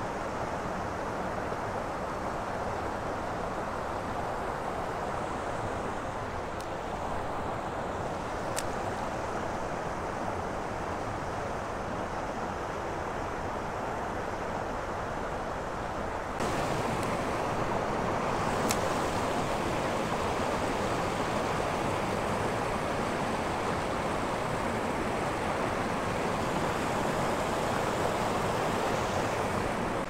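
Steady rush of creek water pouring over a small riffle and drop, a constant even hiss that gets louder about halfway through.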